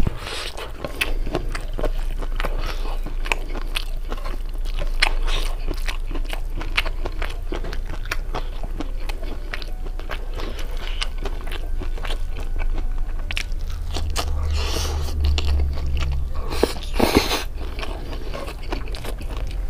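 Close-miked chewing and crunching of food eaten by hand, with many small irregular crackles and a louder crunch near the end.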